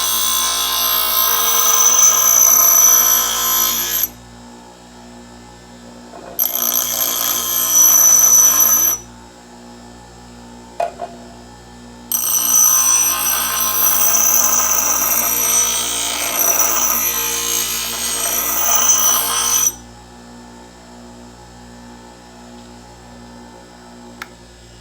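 Electric grinder wheel running steadily while a hatchet's steel edge is pressed to it in three passes, each a loud shrill grinding hiss, the last about seven seconds long. Between passes and near the end only the motor's steady hum is left.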